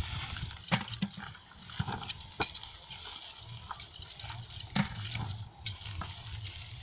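Onions being topped by hand and their bulbs dropped into a plastic bucket: about half a dozen sharp snips and knocks at irregular intervals, with the rustle of the onion tops, over a low rumble.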